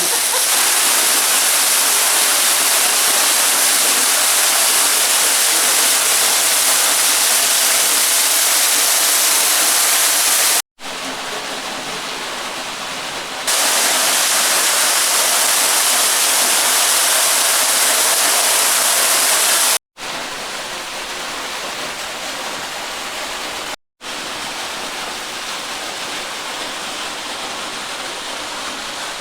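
Waterfall pouring over a rock cliff: a steady, loud rush of falling water. It cuts out briefly three times, coming back quieter after the first cut, louder again after about 13 seconds, and quieter again after the second cut.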